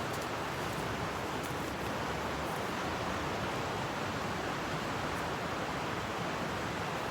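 River water flowing: a steady, even rushing.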